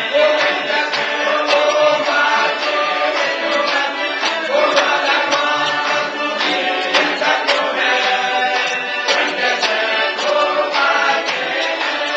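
A crowd of many voices singing together, with a steady beat of sharp strokes about twice a second.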